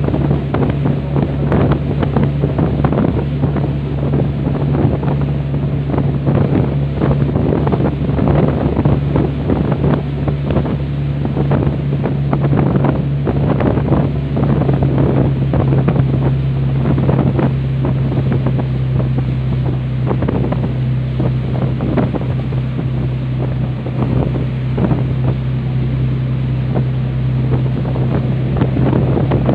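The ferry's twin Scania DI13 diesel engines drone steadily under way at speed, a constant low hum. Wind buffets the microphone in rough gusts over the rush of the wake.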